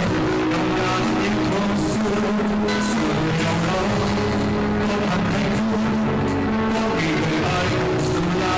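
Live band playing an instrumental passage: electric guitar, bass guitar and drum kit, with sustained held notes and regular cymbal strokes.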